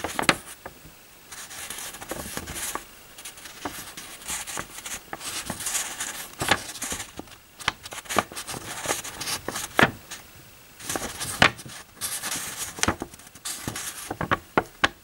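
A sheet of printer paper rustling and crinkling in the hands as it is shifted and slid along, in irregular bursts with sharp crackles.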